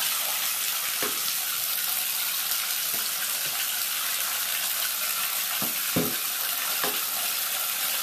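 Bathtub faucet running steadily, water hissing into the tub, with a few brief knocks, the loudest about six seconds in.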